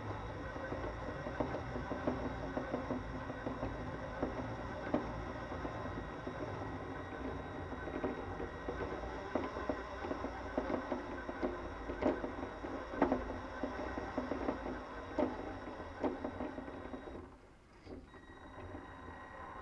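Radio-controlled toy Mini Cooper S running along, its motor and gears whirring, with irregular sharp knocks that the owner puts down to the front suspension bottoming out or hitting the bodywork as the rocking back end makes the front bounce. The running stops suddenly near the end.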